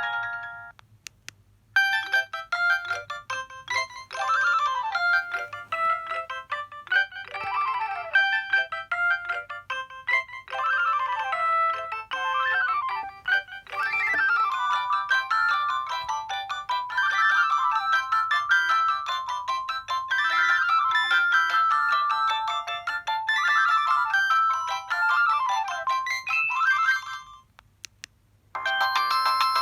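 Samsung SGH-D600 mobile phone playing its preloaded ringtones. One tune cuts off just after the start. After a short pause, an electronic ringtone melody plays for about 25 seconds, full of quick rising and falling runs of notes. It stops, and a new ringtone begins near the end.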